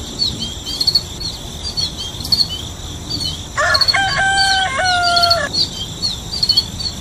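Rural farmyard ambience: small birds chirping over and over above a steady high insect drone, with a rooster crowing once for about two seconds midway.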